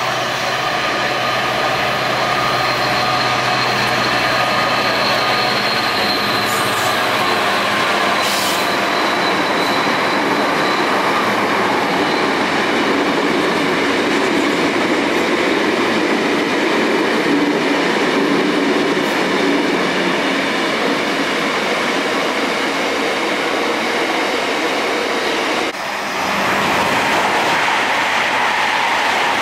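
Diesel-hauled freight train passing at speed: the locomotive's engine drone and whine first, then a long run of hopper wagons rumbling and clattering by with a few sharp wheel clicks. About 26 s in, the sound cuts abruptly to another train's steady rumble.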